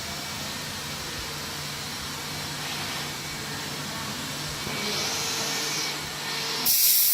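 Spindle of a 1325 CNC router running steadily as it engraves wood, a constant hum under a high whine. In the last half second the hum drops away and a loud hiss takes over.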